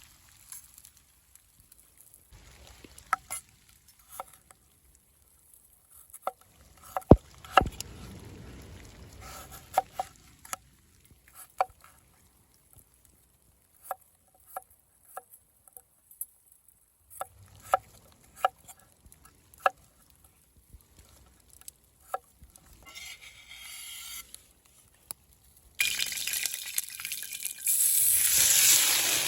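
A scattered run of sharp clicks and clinks, then about four seconds before the end food goes into hot fat and starts sizzling loudly in a saj pan.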